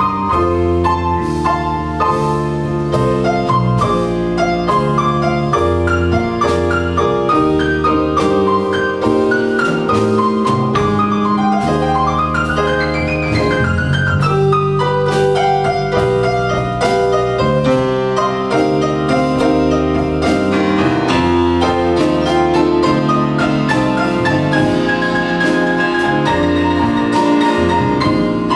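Solo grand piano played live: a steady flow of notes over bass chords, with a run climbing and then falling back about halfway through.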